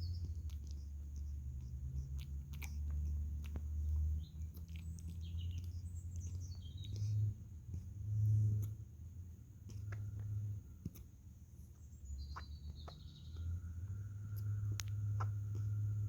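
Sleeping puppy, a Pyrenees-doodle/Australian Shepherd cross, giving short high squeaks and whimpers as she dreams, twice in small clusters. Under them runs a low rumble that swells and dips, with scattered small clicks.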